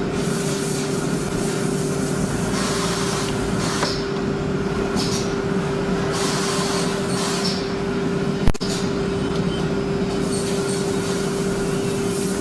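Panel-processing woodworking machinery running, with a steady motor hum and a constant mid-pitched whine. Bursts of hissing noise come and go every second or two, and a single sharp click comes near the end.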